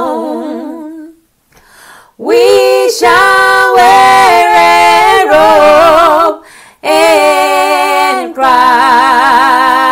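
A woman singing a gospel song a cappella, unaccompanied, in long held notes with wide vibrato. She breaks off briefly about a second in and again a little past the middle.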